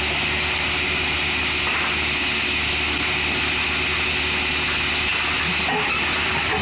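Excavator's diesel engine running steadily, with a steady high-pitched whine over it.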